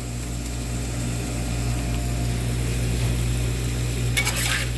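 A steady low mechanical hum, like a kitchen fan or motor, with a brief metal scrape of a utensil against the pan about four seconds in.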